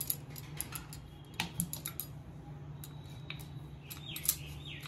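Wooden rolling pin rolling a ball of maida dough on a board, making scattered light clicks and taps over a steady low hum, with a short high squeak about four seconds in.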